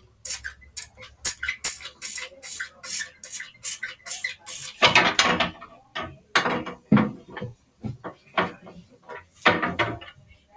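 Small container and utensil handled while an ingredient is added to homemade slime: a quick run of sharp clicks, about three a second, then about five seconds in a string of louder, irregular knocks and scrapes.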